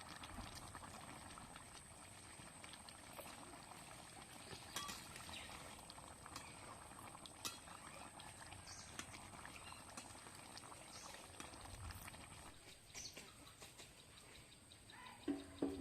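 Curry gravy simmering faintly in a pot, a soft bubbling with many small pops. A brief pitched call sounds near the end.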